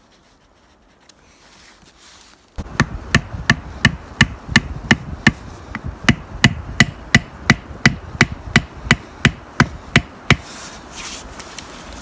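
Rapid, evenly paced striking on wood, about three sharp knocks a second. It starts suddenly about two and a half seconds in and stops near the end.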